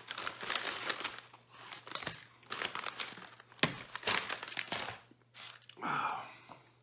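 Paper takeout bag crinkling and rustling as it is handled and opened, in a string of short bursts.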